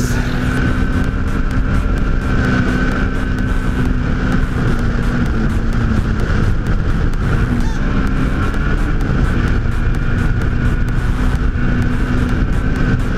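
Off-road race vehicle's engine running at fairly steady revs, its pitch dipping slightly a couple of times, with a steady higher tone above it and many short knocks and rattles.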